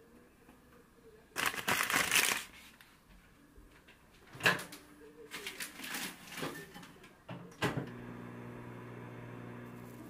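Household handling noises: a loud burst of rustling noise about a second and a half in, scattered clicks and knocks, then a click near the end and a steady appliance hum that carries on.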